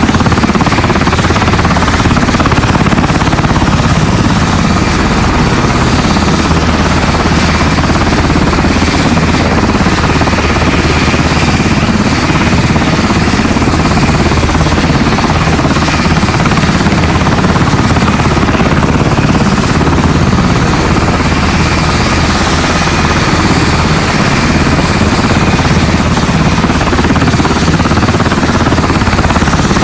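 Helicopter sound effect: rotor and engine running loud and steady, with a fast, even chop.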